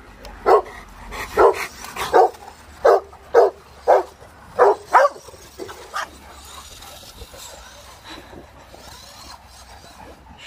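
Dogue de Bordeaux barking at a remote-controlled toy car: about nine short, sharp barks over the first six seconds, then the barking stops.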